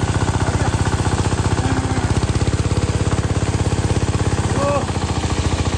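Water-pump engine running with a steady, rapid chugging as it pumps water out of a fish pond through a pipe.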